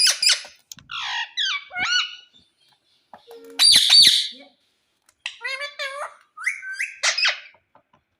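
Indian ringneck parakeet calling: short chattering calls that slide up and down in pitch, then a loud, harsh squawk about halfway through, then another run of chattering calls.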